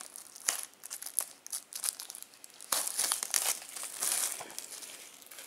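Clear plastic shrink-wrap crinkling and crackling as it is peeled off a Blu-ray case, with the loudest stretches about three and four seconds in.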